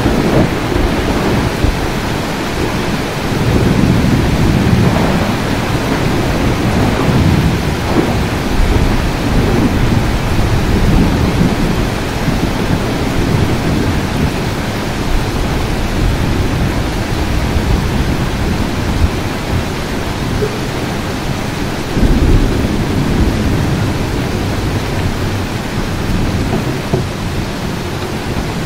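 Heavy, steady rain with thunder rumbling low underneath. The thunder swells and fades several times, with a sharper, louder peal about three-quarters of the way through.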